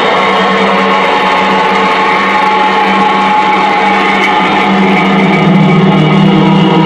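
Live electronic noise music from a rig of effects pedals: a loud, dense, steady drone of many layered tones. A low hum swells up about five seconds in.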